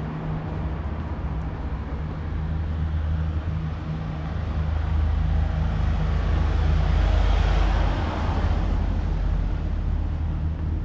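Street traffic: a steady low engine hum, with a vehicle passing that swells to its loudest about seven seconds in and then fades.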